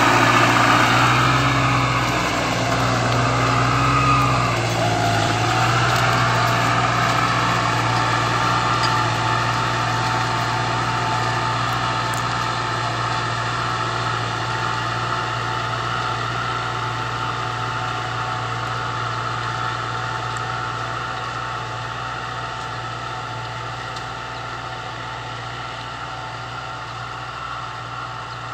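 Massey Ferguson 4275 tractor's four-cylinder diesel engine running under load as it pulls a disc harrow through the soil. A steady drone that grows fainter as the tractor moves away.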